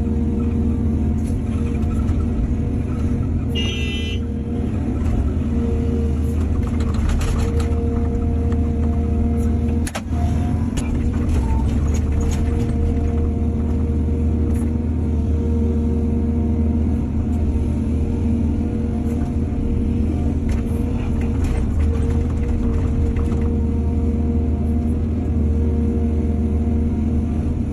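Diesel excavator engine running steadily with a deep drone, with scattered short knocks and scrapes and a brief high squeal about four seconds in.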